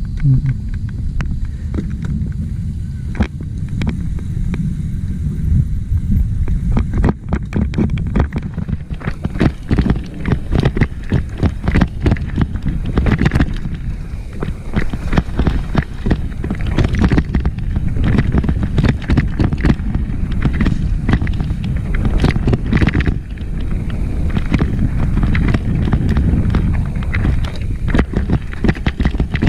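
Downhill mountain bike clattering over rocks and roots on a muddy trail, with a constant rumble of wind and handling noise on the microphone. Short rattles and knocks come thick and fast from about seven seconds in.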